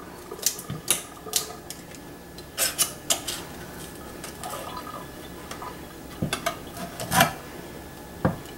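Metal kitchenware clinking and tapping: about a dozen sharp, irregular clinks as a drained tin can of corn is handled at a stainless steel sink.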